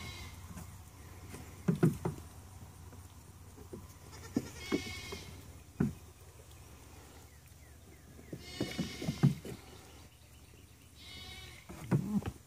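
Two-week-old miniature goat kids bleating: three high, thin calls spread a few seconds apart. Between them come scattered light knocks of small hooves on stone and wood.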